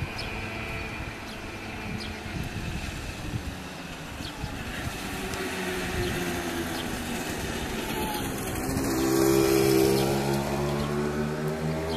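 Street traffic: a motor vehicle's engine passing, its hum growing louder to a peak about ten seconds in, over a steady low rumble.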